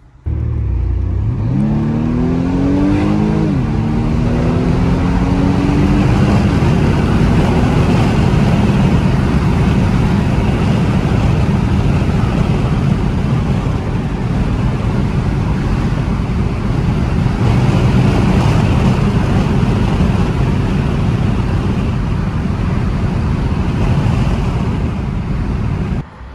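BMW M135i's turbocharged four-cylinder engine accelerating hard, heard from inside the cabin. The pitch climbs, drops at an upshift about three and a half seconds in, and climbs again. Then comes a loud, steady rush of engine and road noise at speed.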